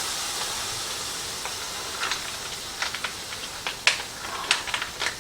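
Orange juice sizzling on a hot skillet, a steady hiss that slowly dies down, with scattered pops and crackles from the pan.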